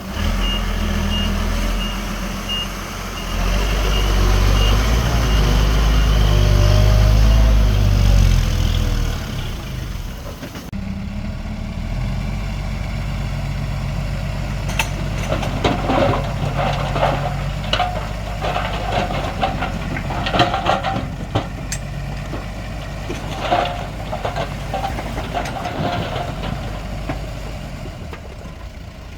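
Heavy diesel machinery working: a bulldozer engine running hard and changing pitch under load, with a truck's reversing beeper pulsing about twice a second for the first few seconds. About ten seconds in, the sound changes abruptly to a steadier engine run, with repeated metallic clanks and rattles in the second half.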